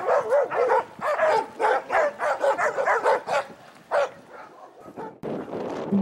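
A dog barking in a quick run of high, short barks, about three a second, breaking off about three and a half seconds in with one last bark just after.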